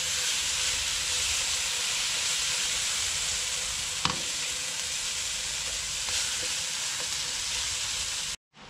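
Onion, tomato and curry powder frying in oil in a pan, sizzling steadily while a metal spoon stirs, with one clink of the spoon against the pan about four seconds in. The sizzle cuts off abruptly near the end.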